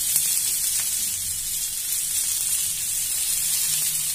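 Chopped onions sizzling in hot oil in a kadai: a steady high hiss.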